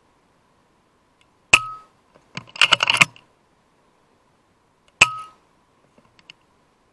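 FX Impact M3 .22 precharged air rifle firing twice, about three and a half seconds apart, each shot a sharp crack followed by a short metallic ring. Between the shots comes a quick clatter of clicks as the rifle's side lever is cycled to chamber the next pellet.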